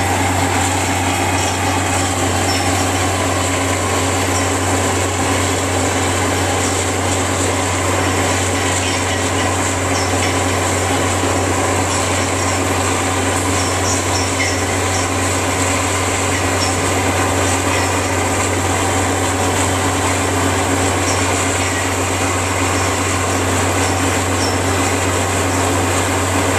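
2007 Versa V-2000NG water well drill rig running steadily: a constant low hum under an even mechanical noise, with no change in speed.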